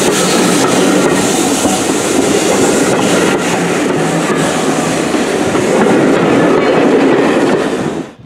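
Steam-hauled train of coaches passing close by: wheels clicking over the rail joints amid the hiss of steam venting low beside the locomotive. The sound cuts off suddenly near the end.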